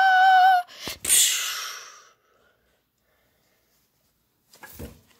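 A child's long, high scream with a slight waver at the end cuts off within the first second. A sharp knock follows, then a hissing burst that fades over about a second.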